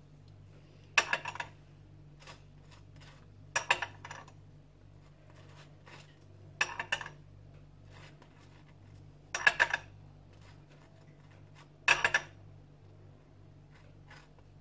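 A metal table knife clinking against small glass sauce cups as mayonnaise and ketchup are scooped and spread on a bun, five short rattling clusters of clinks about every two and a half to three seconds, over a faint steady low hum.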